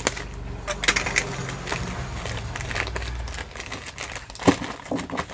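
Clear plastic packet crinkling and crackling as it is cut and pulled open by hand, in irregular sharp crackles, the loudest about four and a half seconds in. A low hum sits under the first three seconds or so.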